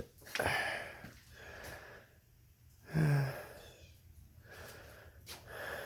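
A man breathing and sighing close to the microphone, with a short low hum or grunt about three seconds in and a few small clicks.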